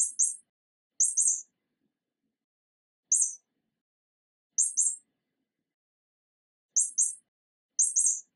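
Mouse squeaks: very short, high-pitched squeaks in quick clusters of one to three, six clusters about a second or two apart with silence between.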